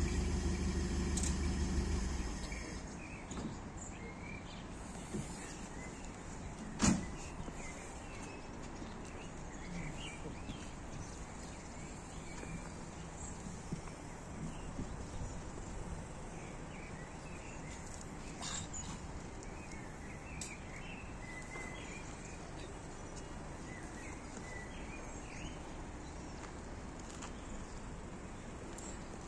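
Quiet outdoor background with scattered short high chirps, after a low steady rumble that stops about two seconds in. A single sharp knock about seven seconds in is the loudest sound, with a few fainter ticks later.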